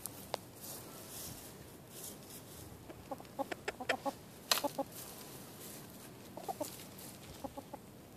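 Hens clucking in short runs of quick, low clucks while dust bathing, with scratchy rustles of dirt and feathers between them. The clucking comes in a cluster near the middle and twice more later, and a sharp rustle about halfway through is the loudest sound.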